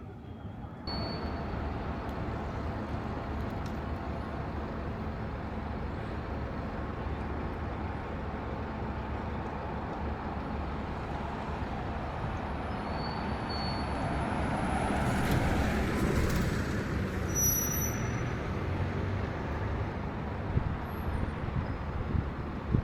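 City street traffic: a steady rumble of passing vehicles that comes in abruptly just under a second in and swells to its loudest about two-thirds of the way through as a large vehicle goes by, with a brief hiss at the peak.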